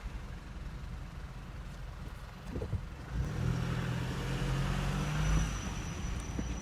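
Car running, with a low engine hum that grows louder from about three seconds in and eases off near the end; a thin steady high whine comes in near the end.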